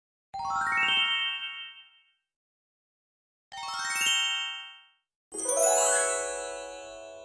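Twinkle sound effect played three times: each is a quick run of bright chime notes stepping upward in pitch. The third run starts lower and is fuller, and it rings on and fades slowly.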